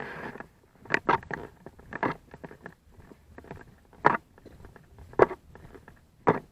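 Footsteps walking at an unhurried pace, a sharp crunch or scuff about once a second with a few short gaps.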